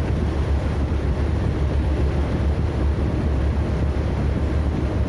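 Motorboat under way: a steady low engine rumble mixed with wind buffeting the microphone and water rushing past the hull.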